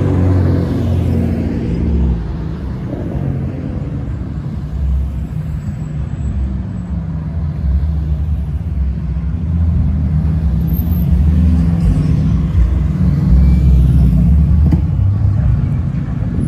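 A line of cars and trucks driving past one after another, their engines and exhausts rumbling low and swelling as each goes by. It is loudest about ten seconds in.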